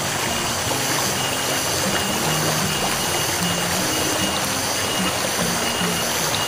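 Steady rushing of a small flowing stream, with a simple, low-pitched background-music melody stepping from note to note over it.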